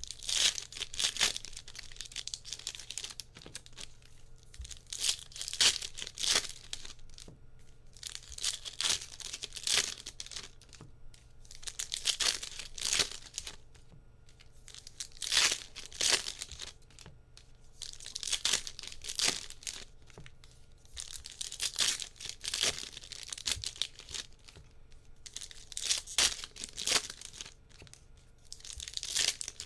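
Foil trading-card pack wrappers torn open one after another, a crinkly ripping burst every three to four seconds.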